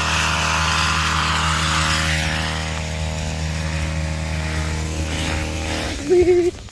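Small gas engine of outdoor yard equipment running steadily, dying away about six seconds in. A short wavering hum from a person's voice follows just after.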